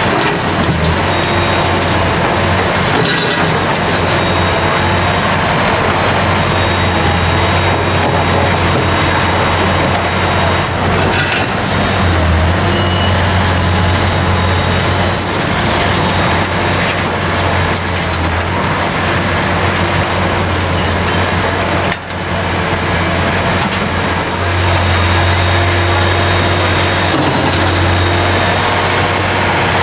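Liebherr R 960 Demolition crawler excavator working: its diesel engine runs steadily under load with hydraulic noise, and a few knocks come from the bucket digging and dumping soil and stones.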